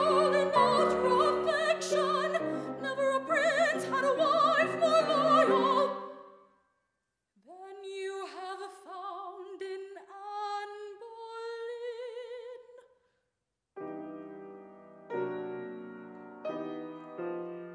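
Operatic soprano singing with wide vibrato over grand piano chords, stopping about six seconds in. After a short pause she sings an unaccompanied phrase that rises at its end. After another pause the piano plays chords alone.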